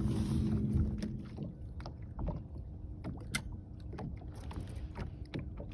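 Sounds aboard a small fishing boat on the water: a low rumble with scattered light knocks and clicks, and one sharper click about three seconds in.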